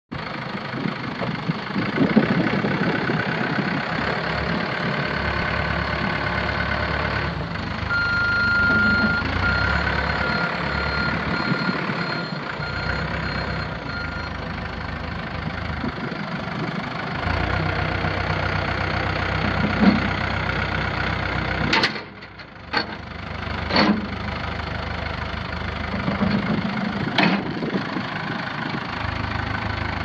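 Four-cylinder diesel engine of a 2006 Terex 760B backhoe running steadily. A thin, high, on-and-off tone sounds for several seconds about a third of the way in. About three-quarters of the way in the sound briefly drops and there are a few sharp clicks.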